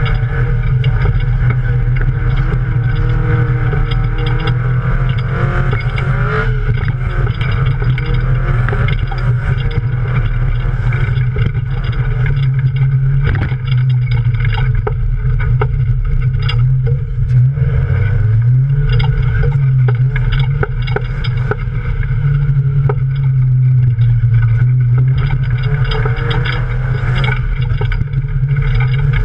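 Toyota Yaris off-road race car's engine running hard under load, heard from inside the caged cockpit. Its pitch rises and falls with throttle and gear changes, with a brief dip a little past halfway. Mud and stones clatter against the body throughout.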